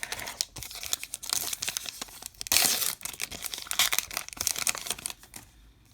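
A baseball card pack wrapper being torn open and crinkled, with dense crackling that peaks about halfway through and stops a little before the end.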